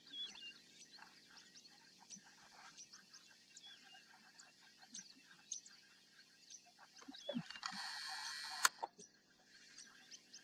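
Faint outdoor morning ambience of scattered small chirps and calls. About three-quarters of the way through, a steady hiss lasting about a second ends in a sharp click.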